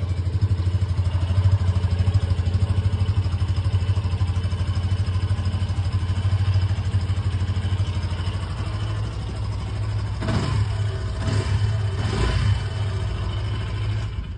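Yamaha FZ15 motorcycle's single-cylinder engine running steadily, with a few brief throttle blips about ten to twelve seconds in, fitted with swapped bolts to change its exhaust note.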